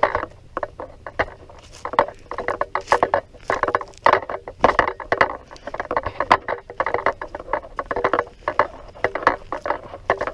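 Footsteps crunching and scuffing over dry leaf litter and twigs as someone walks, an irregular run of crackles several a second.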